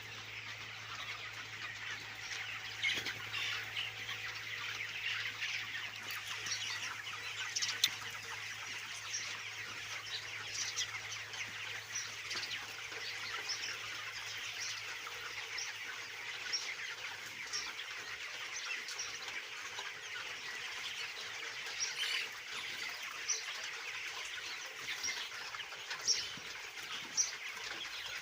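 A large flock of young broiler chickens in a poultry shed, a dense continuous chatter of many chirps and clucks with a few louder calls standing out.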